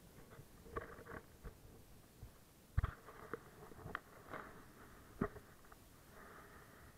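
Terry towel rubbing and brushing against a body-worn action camera, giving scattered rustles and clicks. A few sharper knocks stand out, the loudest about three seconds in.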